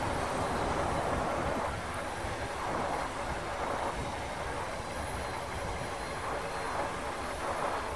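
Wind buffeting the microphone: a steady, uneven rushing rumble.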